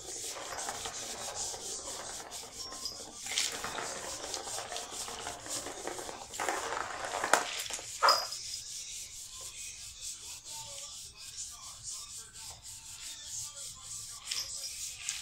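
Cat playing with a Turbo Scratcher toy: a plastic ball rolling around the plastic track and paws rubbing and scraping on the toy, with two sharp knocks about seven and eight seconds in. Quieter after that, with only light rustling.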